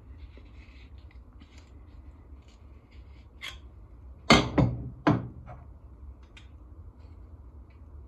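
Light clicks and ticks of metal pipe expander pliers and copper pipe being handled. A little past halfway come three sharp knocks in under a second, as the metal pliers are set down on a wooden workbench.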